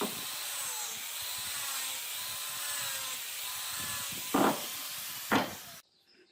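A power tool running steadily against wood, its motor pitch wavering slightly. Two louder scraping strokes come near the end, then the sound cuts off abruptly.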